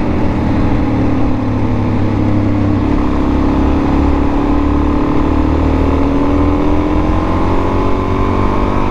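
Single-cylinder dual-sport dirt bike engine running steadily under way, its pitch easing down a little through the middle and climbing again near the end, with wind rumble over the microphone.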